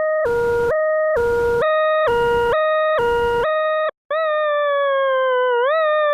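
Electronic siren-like sound effect: a two-tone alternation switching between a high and a low pitch about every half second, the low tone carrying a hiss. After a brief cut near the middle it turns into one steady tone that slowly falls in pitch, with a quick upward swoop about a second and a half later.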